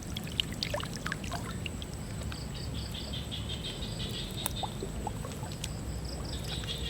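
Water splashing and dripping in the first second or so, over steady low water noise, with a pulsing, chirping trill from about two seconds in that comes back near the end.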